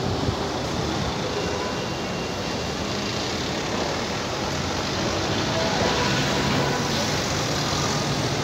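Steady city street traffic noise, with a low steady hum coming in about six seconds in.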